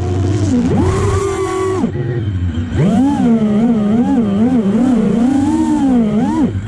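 FPV quadcopter's brushless motors whining close to the onboard camera, the pitch rising and falling with each throttle change. The whine holds level, drops away briefly about two seconds in, then comes back and wobbles up and down quickly.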